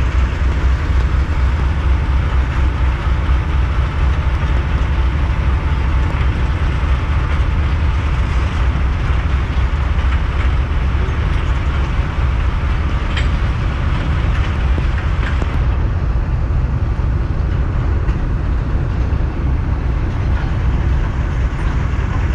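A diesel locomotive running, with a steady deep engine rumble and train noise. The higher part of the noise drops off about 15 seconds in.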